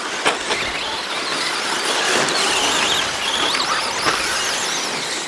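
Several radio-controlled 2WD short course trucks racing, their motors whining and gliding up and down in pitch as they speed up and slow down. A sharp knock about a third of a second in.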